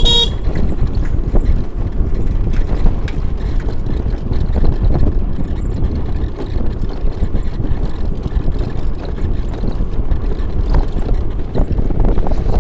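Wind buffeting the microphone over the steady low rumble of travelling along a road, with a brief high tone right at the start.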